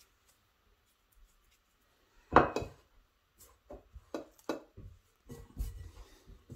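Hands mixing and squeezing a shaggy brioche dough of flour, milk, egg and soft butter in a ceramic bowl: irregular soft knocks and rubs against the bowl, with one louder knock about two and a half seconds in.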